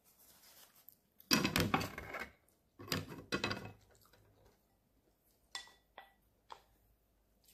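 Tableware handled at a meal: two bursts of clattering dishes in the first half, then three light clinks of chopsticks against a ceramic rice bowl, about half a second apart, the first with a brief ring.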